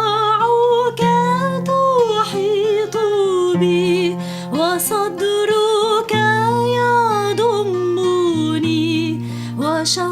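Worship song music: a melody with vibrato, sliding into its notes, over long sustained bass notes and a plucked accompaniment.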